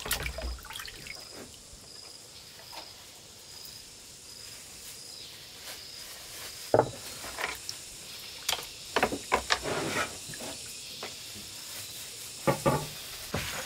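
Dishes being washed by hand in a basin of water: light splashing and scrubbing, then several sharp clinks of ceramic bowls knocking against each other and the basin in the second half.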